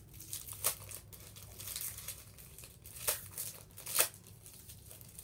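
Crinkling and tearing of a trading-card packet's wrapper as it is opened by hand, with cards being handled, in irregular crackles; the sharpest comes about four seconds in.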